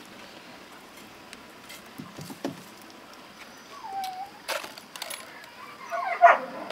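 A dog whines twice: a short, bending call about four seconds in and a louder one near the end. A few light clicks and low knocks sound between the calls.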